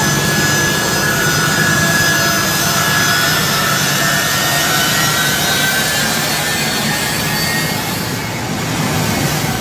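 Turbofan engines of a US Air Force C-17 transport running at close range: a steady loud rush with several high whining tones that slowly drift in pitch.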